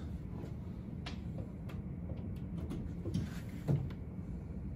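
A few faint clicks and light knocks from a CyberPower UPS being handled as it is plugged in and switched on, over a low steady hum.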